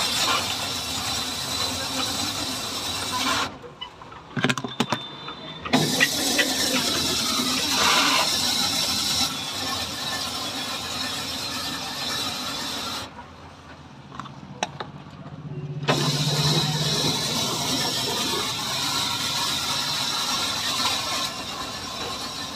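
Gola ice-shaving machine shaving a pressed block of ice into fine ice, a steady harsh scraping. It stops twice for a few seconds, about four seconds in and about thirteen seconds in, with a few clicks during the stops.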